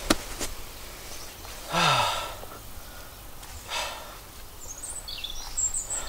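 A man lying in a hammock lets out a long sigh of relief about two seconds in, its pitch falling. A softer breath out follows, and a few faint bird chirps come near the end.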